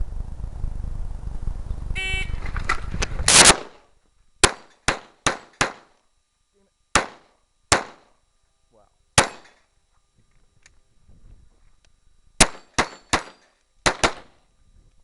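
Electronic shot-timer beep about two seconds in, then a Glock 34 9mm pistol being fired about a dozen times in quick strings, with a pause for movement or a reload before a final rapid group.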